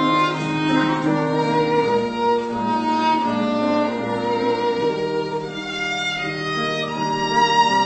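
Music on bowed strings: violins and lower strings playing slow, held notes together in chords that change every second or two.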